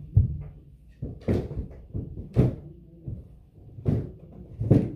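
A person going down a staircase with heavy thumps, about five dull thuds roughly a second apart.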